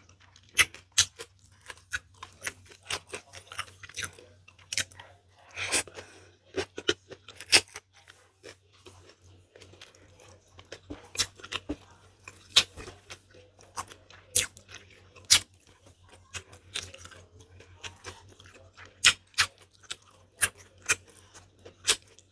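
Close-miked chewing of a mouthful of rice, spicy noodles and sautéed green papaya: irregular sharp clicks and crunches from the mouth, over a faint low hum.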